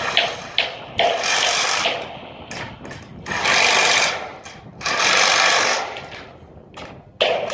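A power tool runs in three short bursts of about a second each while the rack is put together, with a few sharp knocks near the start and one near the end.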